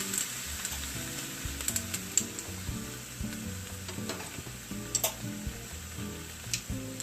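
Turkey tenderloin sizzling steadily on a hot stovetop griddle after being flipped, with a few sharp clicks and pops through it.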